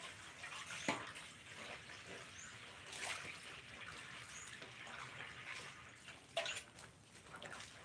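Water running from a garden hose into an aluminium basin, with hands swishing laundry in a second basin and a few brief splashes.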